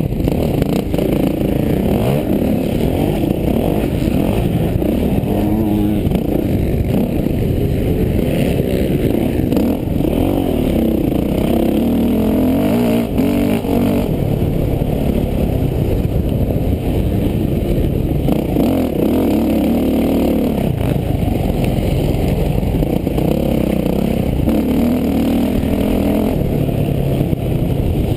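Motocross bike engine heard close up from on the bike during a race, revving hard and easing off again and again as the rider works through the gears and corners, so the engine note keeps rising and falling.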